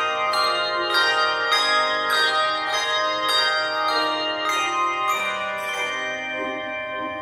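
Handbell choir playing: chords of handbells struck about twice a second, each chord ringing on under the next.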